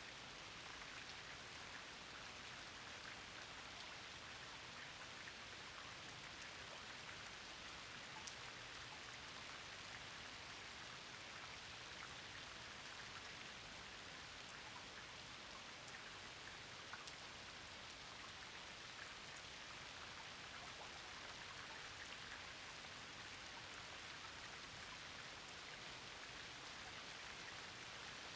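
Rain falling steadily, an even patter with scattered sharper drop ticks.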